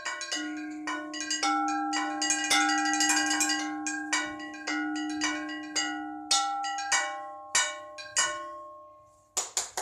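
Bells of several pitches struck in a quick ringing pattern, with a low bell humming under higher ones. The strikes thin out after about six seconds and the last one rings away. Clapping starts right at the end.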